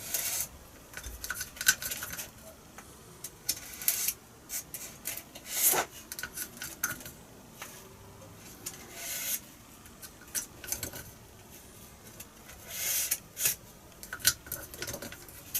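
Irregular small scrapes, taps and rustles of hand work on a foam wing as Copydex glue is fed into the spar slot with a carbon fibre rod.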